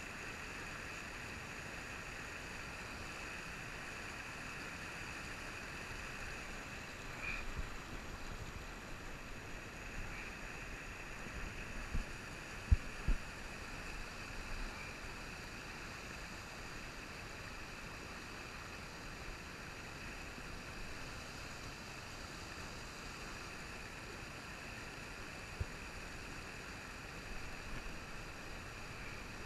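Steady rush of a shallow trout stream running over rock riffles and small rapids. A few sharp low knocks come near the middle.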